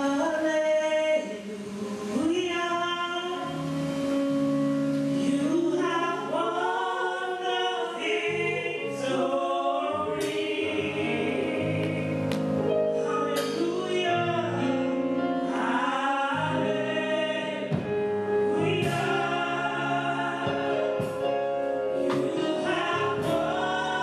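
A woman leading a gospel praise song live on a microphone, with other voices joining in. A keyboard and drums accompany her, with sharp strikes every second or so through the middle.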